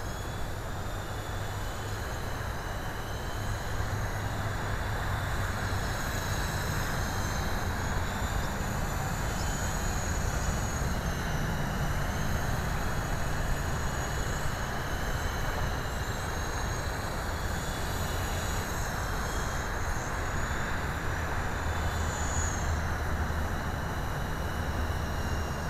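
eSky Big Lama coaxial electric RC helicopter in flight: a steady rotor hum under a high motor whine that rises and falls in pitch as the throttle changes.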